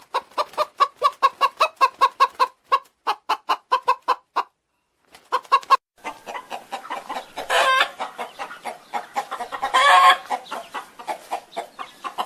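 Chickens clucking: a rapid run of short clucks, a brief pause, then several birds clucking together, with two longer, louder calls in the second half.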